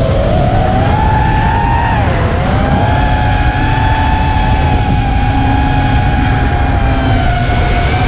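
5-inch FPV quadcopter's brushless motors whining, the pitch dipping with throttle about two seconds in and then holding steady, over a steady low rumble.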